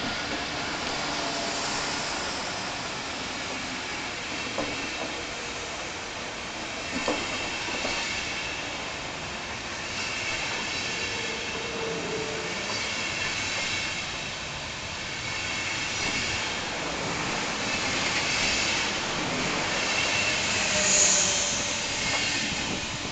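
Deutsche Bahn Intercity passenger coaches rolling past as the train pulls out of the station: steady rumble of steel wheels on the rails, with a few sharp clicks over rail joints and some thin squealing tones from the wheels.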